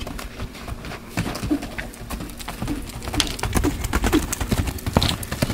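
Hoofbeats of a horse running around a dirt round pen, irregular dull thuds that get louder and closer together about three seconds in as the horse passes close by.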